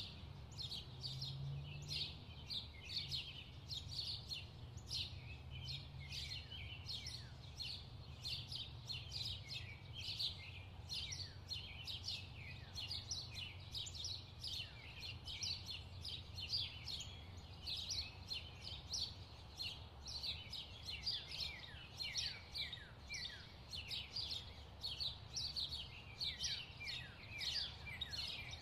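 Birds singing and chirping: a continuous chorus of many short, quick chirps, many of them falling in pitch, over a low steady hum.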